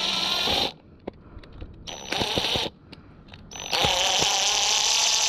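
Cordless drill running in three bursts of a steady motor whine, each starting with a brief high whistle, with short pauses between.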